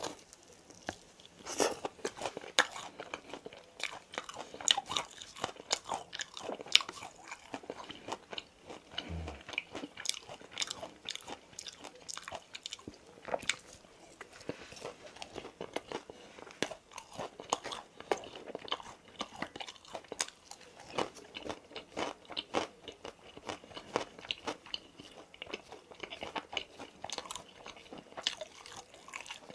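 A person biting into and chewing boneless fried chicken: many short, crisp crunches and mouth clicks, several a second.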